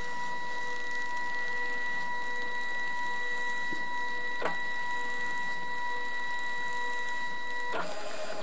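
Zebra ZM400 thermal-transfer label printer feeding labels during its automatic media calibration. Its motor makes a steady whine with a single click about four and a half seconds in, then stops shortly before the end.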